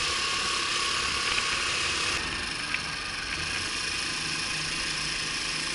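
Honda Super Cub 50's small air-cooled four-stroke single-cylinder engine running at low road speed, under a steady hiss of wind and road noise.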